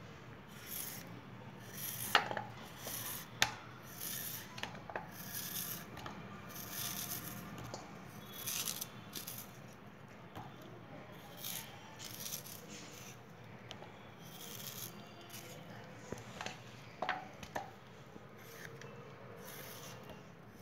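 Kitchen knife slicing raw peeled purple yam into fry-sized sticks held in the hand: a run of short scraping cuts through the firm flesh, with a couple of sharp clicks a few seconds in.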